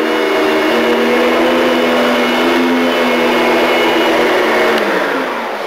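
Commercial upright vacuum cleaner running steadily on an entry mat: a motor hum over a rushing airflow. Near the end the motor's pitch drops and the sound fades as it winds down.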